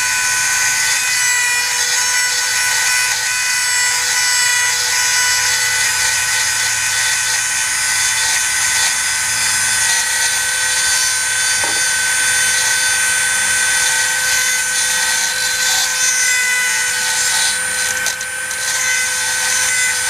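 Dremel rotary tool with a diamond bit running at a steady high-pitched whine, grinding out a titanium nitride drill bit broken off inside a broken bolt in a transfer case output shaft. The sound dips briefly about two seconds before the end.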